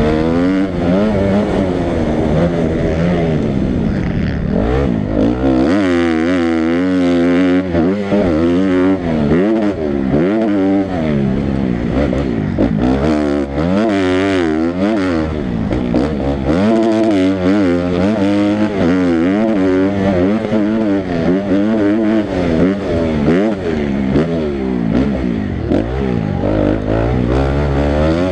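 Motocross dirt bike engine heard close up from on the bike, revving up and falling back again and again as the throttle is opened and closed around the track.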